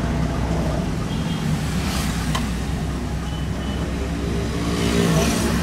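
Renault 18 GTX's stock 2.0-litre engine running steadily, growing a little louder near the end.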